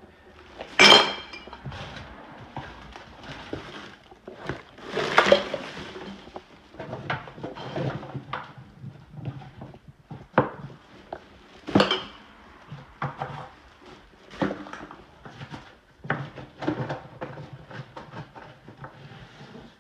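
Household dishes, pots and other hard metal and glass items clattering and clinking as they are handled and tossed about, in irregular knocks. The loudest knock comes about a second in and rings briefly.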